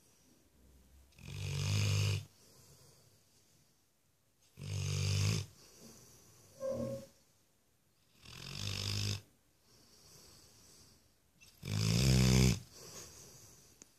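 Yellow Labrador snoring in its sleep: four loud, low, rattling snores, one about every three and a half seconds, with quiet breathing between them. A brief squeaky sound comes about halfway through.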